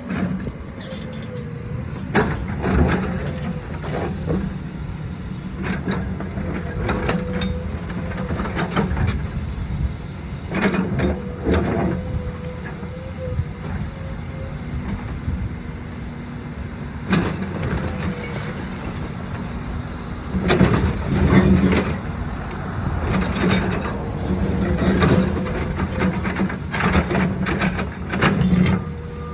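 Backhoe's diesel engine running steadily, with a whine that comes and goes, while repeated clunks and crashes of breaking cinder block ring out as the wall is torn down, in clusters throughout.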